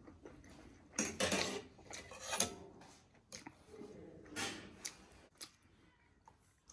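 Spoon and fork clinking and scraping against a small steel bowl and a brass plate, in several separate short bursts with one sharp clink about a third of the way in.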